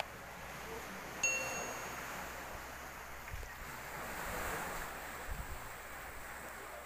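Steady wash of sea surf and wind on the microphone, with one short bright bell-like ding about a second in.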